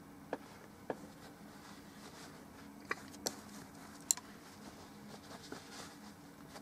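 Painting tools being handled: about five light, sharp clicks and taps at irregular intervals, with faint soft rubbing, over a low steady hum.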